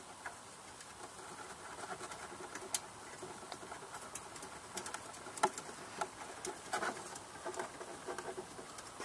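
Irregular light clicks and scraping of metal on metal: the stainless exhaust pipe of a Can-Am Renegade ATV being worked and twisted onto its fitting, its clamp loosened so it turns.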